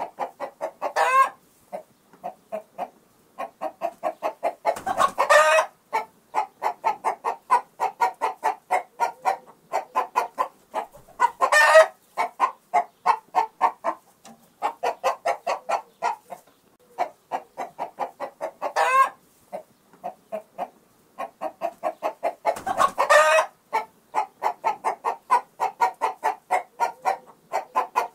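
Chickens clucking in long runs of quick, short clucks, with a louder drawn-out squawk every few seconds.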